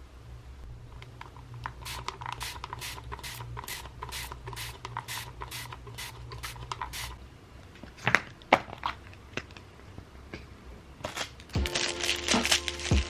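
A steady run of sharp taps, about three a second, for some five seconds, then a few scattered knocks and a clatter. Music comes in near the end.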